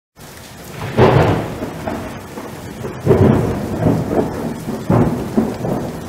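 Thunderstorm: steady rain with three rolls of thunder, about a second in, again about two seconds later, and once more near the end.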